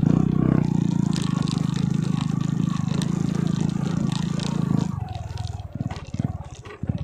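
Small motorcycle engine running under steady throttle, with light knocks and rattles from the rough path. About five seconds in the throttle eases off and the engine drops to uneven bursts.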